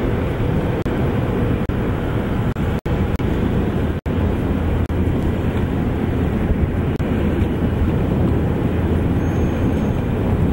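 Single-engine floatplane's piston engine giving a steady low drone as it glides in and lands on the water, under a constant rush of outdoor noise. The sound cuts out for an instant twice, a few seconds in.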